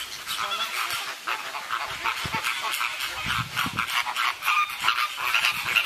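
A flock of flamingos calling, many short honking calls overlapping one another without a break.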